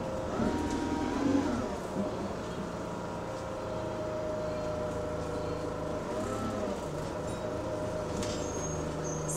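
Go-Ahead London SE62 single-deck bus's engine moaning, heard from inside the saloon while under way. Its pitch rises and falls about a second in and again around six seconds in, holding steady between. A short high tone sounds near the end.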